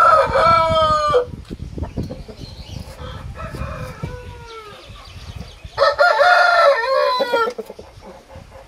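Aseel roosters crowing: a loud crow ends about a second in, a fainter crow comes around four seconds, and another loud crow of about a second and a half begins near six seconds.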